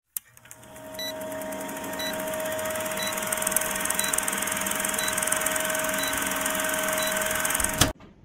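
Vintage film-countdown effect: a film projector running with a steady hum and fast rattle, and a short high beep once a second, seven in all. It ends in a sharp click and cuts off suddenly near the end.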